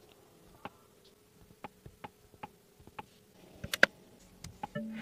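Controls on a BYD Leopard 5's centre console being worked by hand: a run of light detent clicks, about three a second, then a louder cluster of switch clicks near the end.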